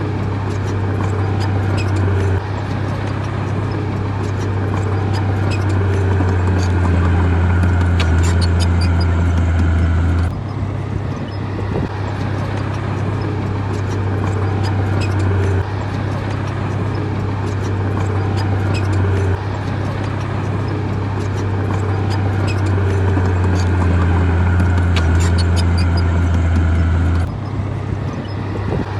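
Heavy diesel construction machinery running steadily, a deep engine drone with scattered metallic clicks and clanks over it. The sound changes abruptly several times, as at cuts between shots.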